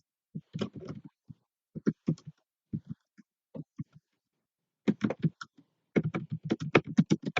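A caller's voice over a Skype call, choppy and broken up, dropping out completely between short fragments and running more continuously near the end.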